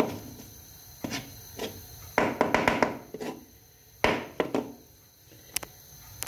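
Kitchen knife knocking and scraping on a plastic chopping board as diced raw chicken is pushed aside, with a quick run of knocks about two seconds in and a stronger single knock about four seconds in. Two sharp clicks come near the end.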